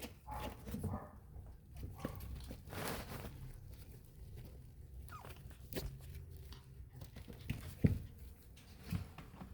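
A dog making a run of small, irregular noises: a few short calls, a longer breathy sound about three seconds in, and a sharp click just before eight seconds.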